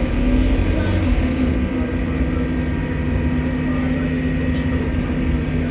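London double-decker bus running steadily under way, a constant low engine drone. A faint high whine rises and then falls about a second in.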